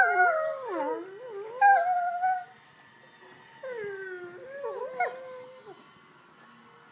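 Doberman puppy howling and whining in play: a wavering, sliding howl at the start that breaks and rises again, then a second falling howl about three and a half seconds in.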